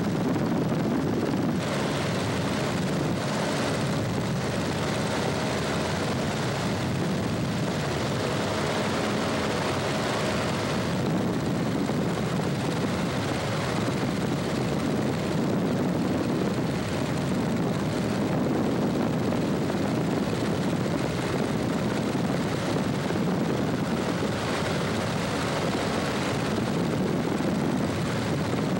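Cessna 150 in cruise heard from inside the cabin: the four-cylinder Continental O-200 engine and propeller droning steadily, mixed with wind rush.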